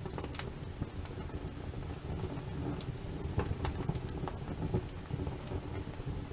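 Wood fire crackling, with sharp pops scattered over a low steady rumble.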